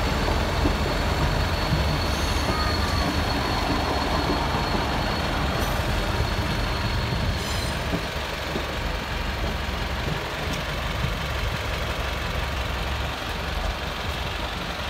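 South Western Railway diesel multiple-unit trains passing over a level crossing: a steady heavy rumble of wheels and engines, with a thin high whine in the first half.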